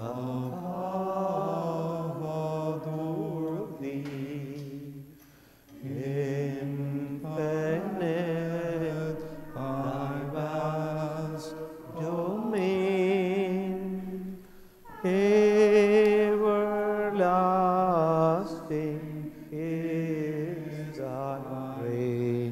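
A slow hymn sung by a voice with vibrato, in held phrases of a few seconds each, with short pauses between phrases.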